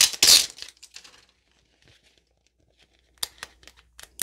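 Plastic wrapping being pulled and torn off a plastic toy capsule: a loud crinkling tear in the first half second, softer crinkles after it, a lull of about two seconds, then short sharp crinkles near the end.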